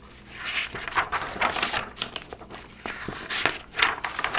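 Irregular rustling and crinkling of paper, like the pages of a picture book being handled and turned, in a small room.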